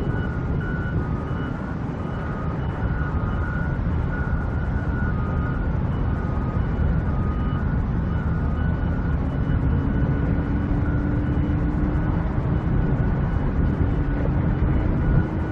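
Steady rumble of vehicles and machinery at a construction site, with faint repeated beeping throughout. In the second half a low engine hum slowly rises in pitch.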